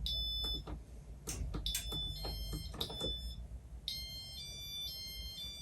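Electronic beep tones from a Casablanca ceiling fan's InteliTouch3 control as demo mode is started: a few short high beeps with light clicks between, then a stepping run of tones from about four seconds in.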